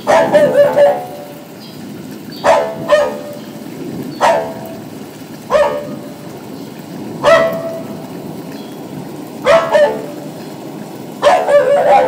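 Small dog barking in short, sharp barks: a quick run of barks at the start, then single or paired barks every second or two, and another quick run near the end.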